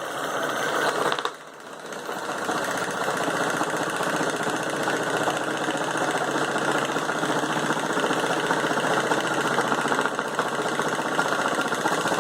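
Homemade pulley-driven jigsaw running, its blade reciprocating with a fast, even chatter. It dips briefly about a second in, then comes back up to speed and runs steadily.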